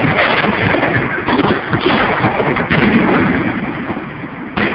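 Professional fireworks display close by: a dense barrage of shells going off in quick succession, the booms overlapping one another, easing briefly near the end.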